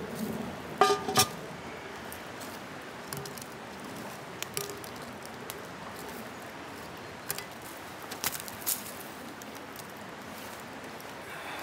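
Steady rush of river water. About a second in come two sharp clanks, the first with a brief ringing tone, and a few lighter clicks follow.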